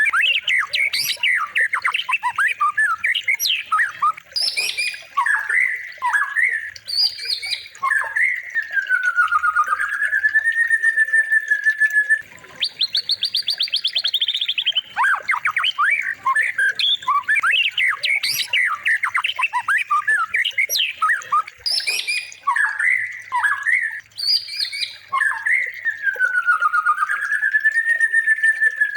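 Looped birdsong training track (masteran) for white-rumped shamas: a busy run of squawky notes and quick chirps, a fast buzzy trill and a long whistle that dips then rises. The same phrase sequence comes round again about every 14 seconds.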